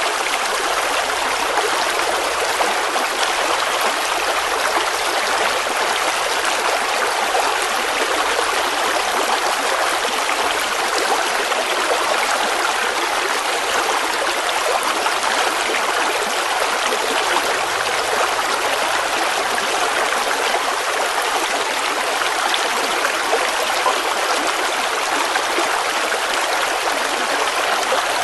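Flowing stream water, a steady rushing and trickling over stones.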